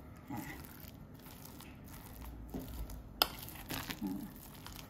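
Metal spoon stirring and pressing a sticky minced lotus root and plant-based meat paste in a stainless steel bowl, with soft, irregular mixing noises and one sharp clink of spoon against bowl about three seconds in.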